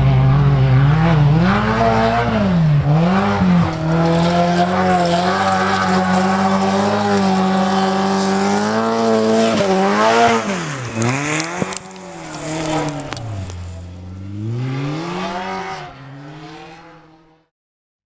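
Off-road race vehicle's engine running hard at high revs, its pitch dipping and climbing again several times. It grows fainter in the second half and fades out, cutting off just before the end.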